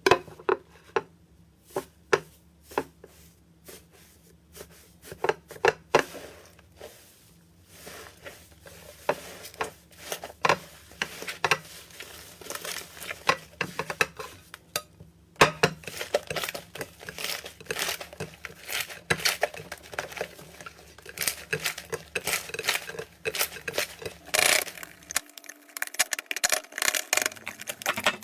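Hands squishing and kneading slime: a run of irregular sticky clicks and pops, sparse at first and much denser after about eight seconds.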